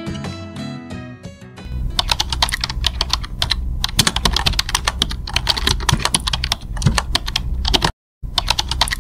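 A second and a half of plucked-string music, then rapid, irregular clicking of typing on a keyboard, broken by a short pause near the end.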